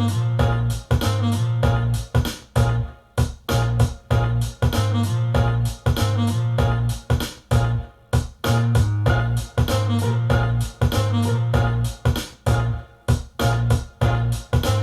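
Background music: keyboard-led instrumental track with a steady, pulsing beat and a prominent bass line.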